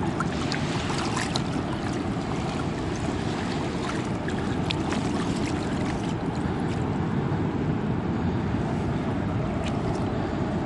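Steady rush of fast river water mixed with wind on the microphone, with a few faint clicks.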